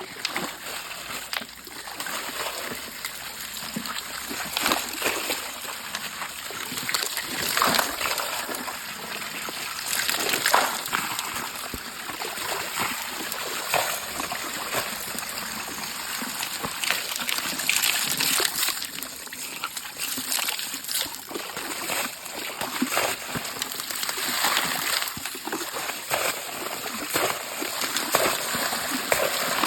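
Water splashing and sloshing irregularly over a steady trickle, as gold-bearing sediment is washed by hand over a sluice carpet.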